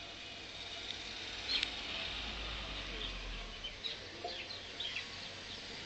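Small birds chirping in the background: scattered short, high chirps, with a faint low rumble about two seconds in.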